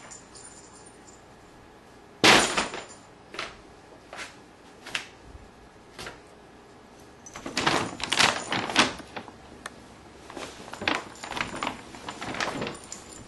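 Stiff paper bag crackling and rustling as a cat swats at it and pushes into it: short, sharp crinkles, the loudest about two seconds in, then quicker clusters of crackles in the second half.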